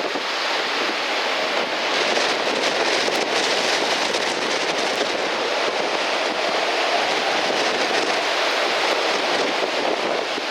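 Strong wind rushing through trees in a steady, loud roar, with slight swells in loudness during a high wind event.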